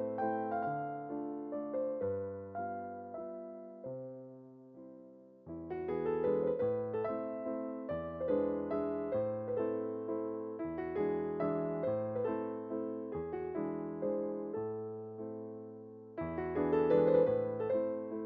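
Background music: a gentle electric piano melody over bass notes, thinning out around four seconds in and coming back fuller about five and a half seconds in.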